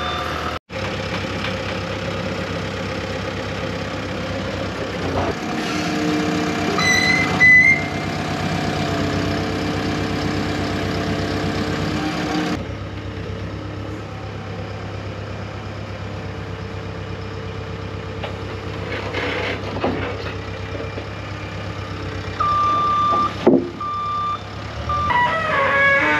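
Heavy vehicle engine running steadily, with a reversing alarm beeping just as it starts and again a few times near the end, while the vehicle backs up.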